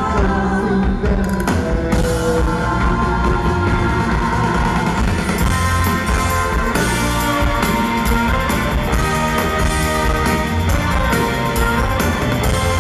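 Live rock band with a horn section playing an instrumental passage, with drum kit and electric guitars driving it and no singing.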